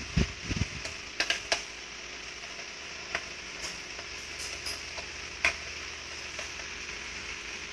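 Screwdriver and metal parts of a Riso duplicator's pressure-motor assembly clicking and tapping during reassembly. Two low bumps come right at the start, then a cluster of sharp clicks just over a second in and single clicks around three and five and a half seconds in, over a steady hiss.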